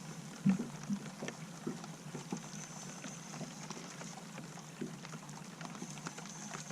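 Water lapping against a small fishing boat, with scattered small irregular knocks over a steady low hum.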